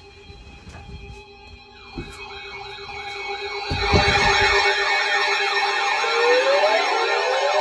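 Electronic siren-like wail warbling rapidly up and down over several steady tones. It starts faintly and becomes much louder about halfway through.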